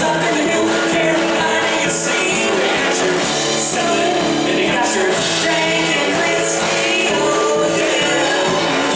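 Live band playing an upbeat country-rock song: strummed acoustic guitar, electric guitar and a drum kit with cymbal crashes, with a woman singing lead.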